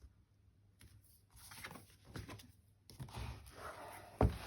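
Handling noise of paper and fabric craft materials: irregular rustling and light scraping, with one sharp knock near the end.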